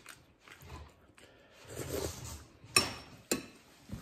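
A metal spoon clinking twice against a ceramic soup bowl, about half a second apart near the end, the first clink ringing briefly; a soft low sound comes a second before.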